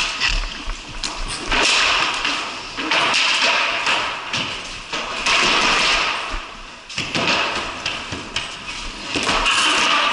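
Ball hockey play on a concrete floor: repeated taps and thuds of sticks, ball and running feet over swells of scuffing noise.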